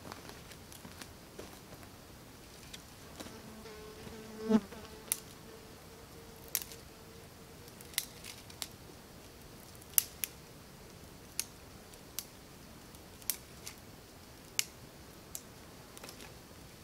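Knife cutting into wood in short, sharp strokes, about one a second, as a piece is whittled by hand. A fly buzzes past close by from about three to six seconds in.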